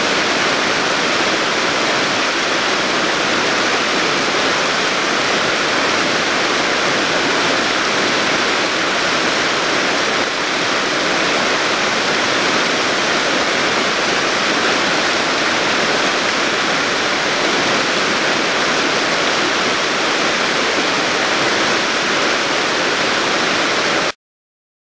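Fast, shallow river rapids rushing loudly and steadily. The sound cuts off suddenly near the end.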